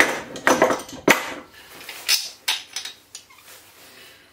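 Metal hand tools clinking and clanking as water pump pliers are picked up off an adjustable spanner on a wooden workbench. There are several sharp knocks in the first two and a half seconds, then it goes quieter.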